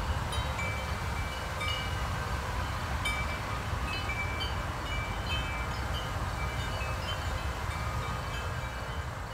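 Many metal tube wind chimes hanging in a tree, ringing in scattered clear high notes as the breeze moves them, over a low rumble of wind on the microphone.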